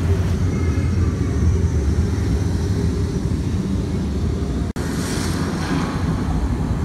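Loud, deep, steady rumbling noise that breaks off for an instant about two-thirds of the way through.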